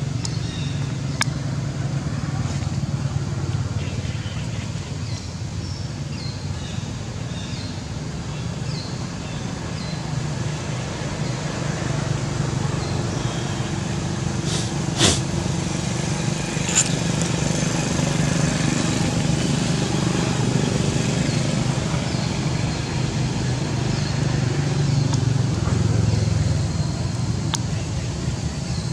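A motor runs steadily with a low drone, like a vehicle engine. Faint short high chirps come in the first third, and a few sharp clicks sound about halfway through.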